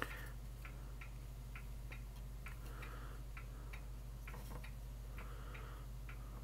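A steady run of light, sharp ticks, about three a second, over a low steady hum, with faint soft rustling a couple of times.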